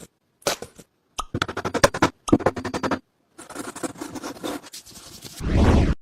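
Choppy scraping and rapid clicking sounds, cut apart by abrupt silent gaps, ending in a loud, deep burst of noise.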